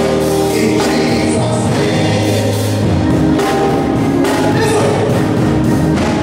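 Gospel song performed live: a man singing into a handheld microphone over steady amplified music with choir voices.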